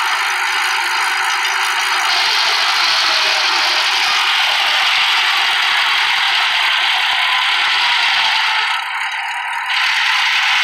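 Clark portable sawmill running, its circular head saw and log carriage making a loud, steady mechanical noise that drops back for about a second near the end, then returns.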